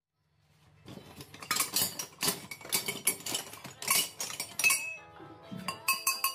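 Scrap steel square-tube offcuts clinking and clattering against one another as they are rummaged through and pulled from a cardboard box. Sharp metallic clinks with a short ring come thick and fast from about a second in, then thin out after about five seconds.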